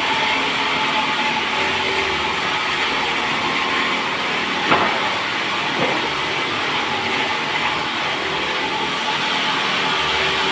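Sawmill machinery running steadily, with a saw cutting through a teak log. There is a continuous hiss with a few held tones, and two short knocks near the middle.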